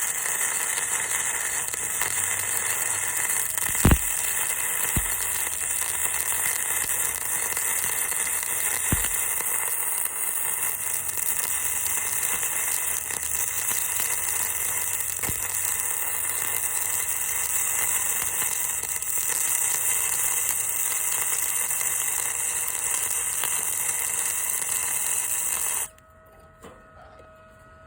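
Flux-core arc welding with an Arc Captain MIG 250: the arc hisses and sizzles steadily, with a few sharp pops, then cuts off suddenly about 26 seconds in.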